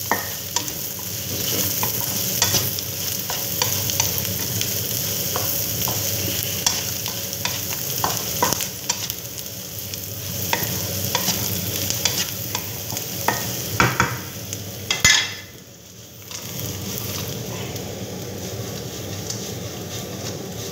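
Diced potatoes and onion sizzling in oil in a frying pan, stirred with a wooden spatula that scrapes and knocks against the pan. The sizzle dips briefly about three-quarters of the way through, then comes back.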